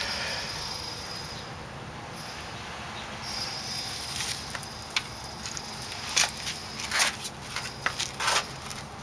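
Dry pine-needle tinder bundle rustling and crackling as it is handled to bring a friction-fire coal up to flame. In the second half come a series of short, sharp noisy bursts, the loudest a little over halfway through and near the end.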